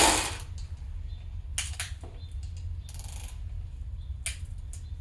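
Adjustable piston ring compressor being tightened and handled around a piston: a ratchet stops just as it begins, followed by a few light metal clicks and taps. A steady low hum runs underneath.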